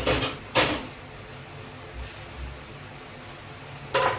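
Kitchen handling noises: two short rustles or knocks just after the start and another near the end, over a low steady hum.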